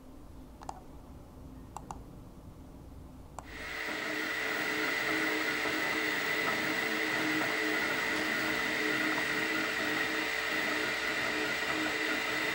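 Velleman Vertex K4800 3D printer running: a steady whirring from its fans and motors with a constant high tone. It starts suddenly about three and a half seconds in, after a faint hum with a few soft clicks.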